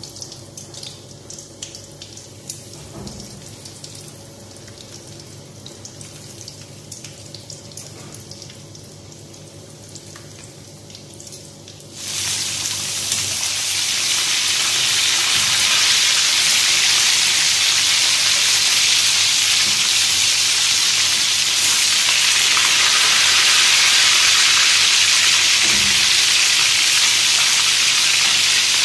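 Chicken wings frying in hot oil in a pan: faint crackling at first, then about twelve seconds in a loud, steady sizzle suddenly takes over.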